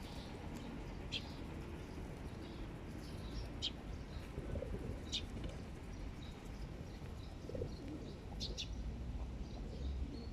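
Feral pigeons cooing softly, with a few short, sharp high bird chirps, over a steady low rumble.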